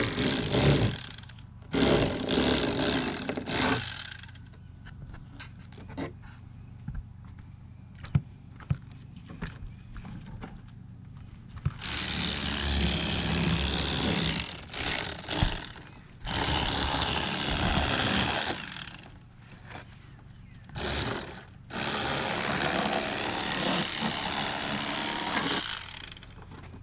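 Electric fillet knife running in bursts as it cuts crappie fillets. There are short runs early on, then longer runs of several seconds each in the second half, with quieter pauses holding small clicks and knocks between them.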